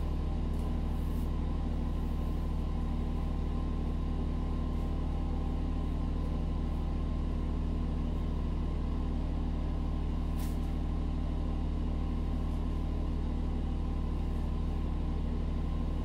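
Steady low mechanical hum of running machinery, with a faint tick about ten seconds in.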